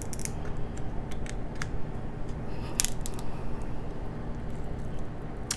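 Spiny king crab leg shell crackling and snapping as it is pried apart by hand to get at the meat: a scatter of sharp cracks, the loudest about three seconds in.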